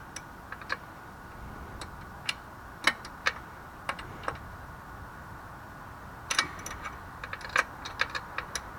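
Irregular metallic clicks and taps of a wrench working a motorcycle's chain adjuster bolt and lock nut, thickest near the end.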